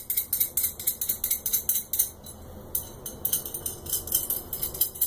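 Steel M10 nut being spun down a threaded rod by hand, rattling on the threads in quick metallic clinks, about five a second, with a short pause a little after two seconds in.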